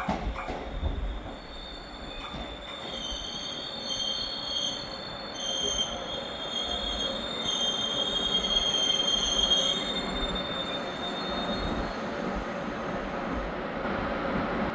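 Taiwan Railway EMU500 commuter train running through the station with its wheels squealing on the rails in high, wavering tones. A few sharp clacks sound in the first three seconds.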